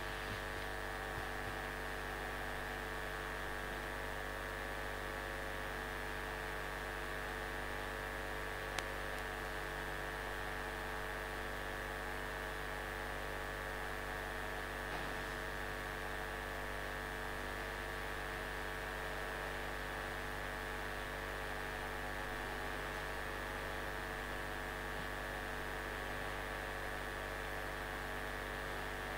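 Steady electrical mains hum with a faint hiss, unchanging throughout, with a single sharp click about nine seconds in.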